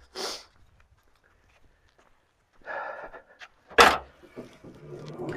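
A brief breathy sound near the start, then about four seconds in a single sharp metal clunk as the Ford Bronco's hood latch releases and the hood is raised, followed by a few faint small clicks.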